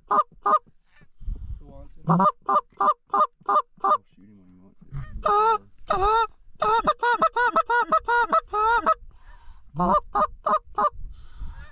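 Hand-held goose call blown in a string of short honks and clucks, with a few longer two-part honks and a fast run of clucks and spit notes in the middle. It is used to call a single Canada goose in to the decoys.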